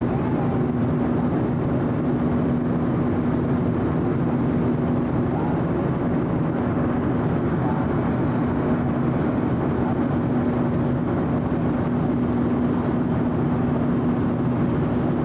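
Steady airliner cabin noise in cruise: an even rush of airflow with a constant droning hum from the CFM turbofan engines.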